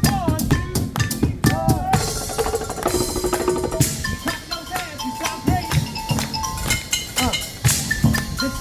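Live percussion music: a driving drum beat with bass-drum and snare-like hits and pitched notes over it, played on drums and instruments built from reused materials.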